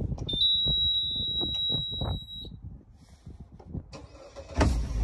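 Ignition key switched on for a 90 hp Suzuki four-stroke outboard: its warning buzzer gives a steady high beep for about two seconds. Near the end the cold engine cranks and fires, settling into a low running rumble.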